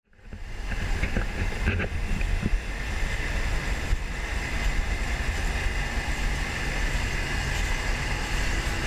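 New Holland CR8070 combine harvester running steadily as it harvests corn, with wind buffeting the microphone. The sound fades in over the first half second.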